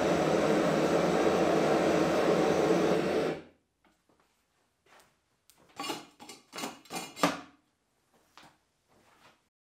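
Gas forge burner running with a steady rushing roar, then shut off about three and a half seconds in, the noise stopping abruptly. After it, a few faint sharp clicks and ticks.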